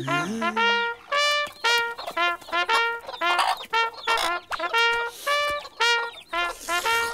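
Cartoon soundtrack: a quick run of short, honking, brass-like pitched notes, about three a second, with a brief low rising sound at the very start.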